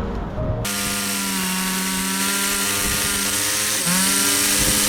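Petrol whipper snipper (string trimmer) running at high, steady revs. It cuts in abruptly about half a second in, and its pitch dips briefly and recovers near the end.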